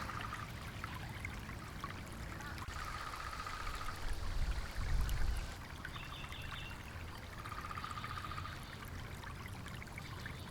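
Running water trickling steadily. A short trill repeats about every four seconds, with a brief low rumble about halfway through.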